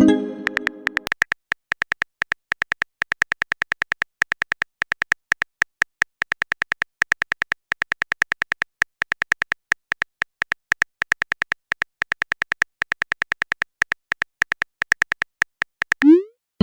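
Texting-app sound effects: a rising pop and a short chime of a chat message appearing right at the start. A long run of quick keyboard typing clicks follows, several a second, and another rising pop comes near the end.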